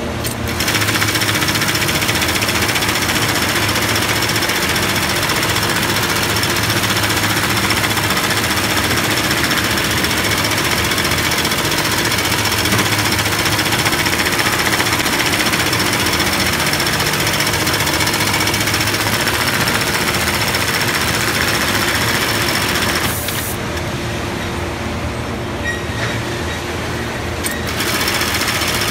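Keestar LoopSEW65 automatic FIBC loop-attaching sewing machine running at speed, a dense rapid mechanical clatter as its needle stitches a polypropylene webbing loop onto woven big-bag fabric. It stops about 23 s in while the next loop is placed, leaving a quieter machine hum, and starts stitching again near the end.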